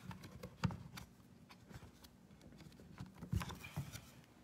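Hands fitting the back into a small photo frame: faint handling noise with a few light taps, one under a second in and two more a little past three seconds.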